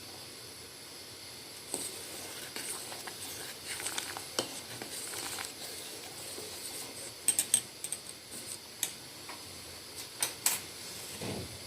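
Pot of spiced turmeric milk simmering on a gas stove with a steady hiss, and scattered metal clinks and taps against the pot, a cluster of them about seven seconds in.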